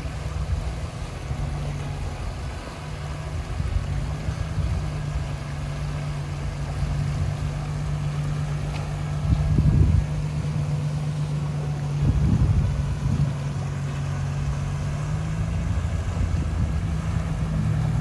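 4WD vehicle engine running steadily at low speed as it crawls through a shallow rocky river crossing, over the noise of rushing water. Two brief louder buffets of wind on the microphone come in the second half.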